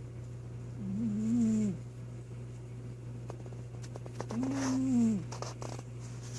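Domestic cat snoring in its sleep: two long, slightly wavering snores about three and a half seconds apart.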